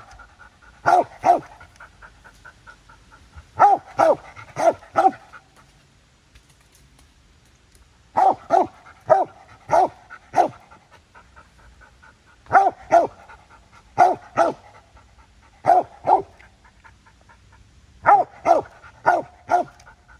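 Hunting dog barking treed: loud, evenly spaced barks in bunches of two to five, with short pauses between the bunches, the steady bark of a dog holding game up a tree.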